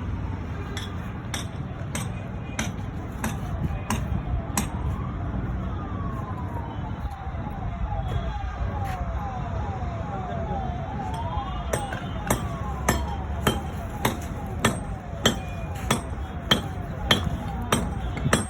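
Hammer strikes at a steady pace, a little under two a second, louder towards the end, from terrace repair work. Midway, a siren wails and then switches to a fast yelp for several seconds.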